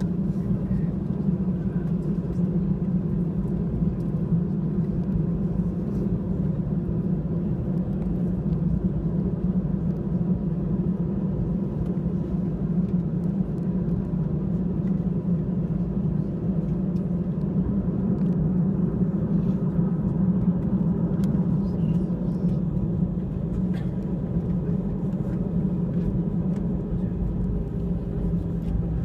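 Airbus A320 cabin noise while taxiing: a steady low hum from the jet engines at idle, with a few faint ticks and rattles.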